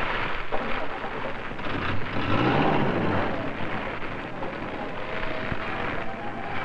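Burning mallee scrub crackling and rushing, with a vehicle engine rumbling underneath, heaviest about two to three seconds in.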